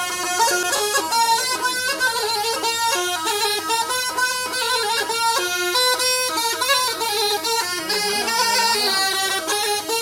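Gulf bagpipe (habban) playing a lively melody, the notes changing several times a second in one unbroken, reedy line with no pauses for breath.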